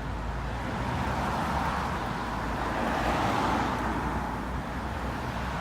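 Road noise from a motor vehicle on the move: a steady hiss of tyres and engine rumble that swells a little around the middle.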